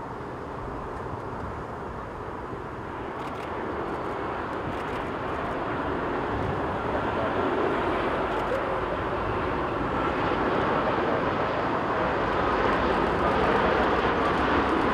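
Boeing 787-8's GE GEnx-1B turbofan engines on landing approach, a steady jet engine sound growing steadily louder as the airliner closes in.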